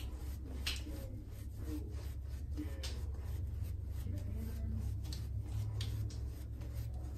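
Synthetic-knot shaving brush painting wet soap lather on a face, in irregular soft scratchy swishes over a steady low hum. The lather is being thinned with water until it turns translucent.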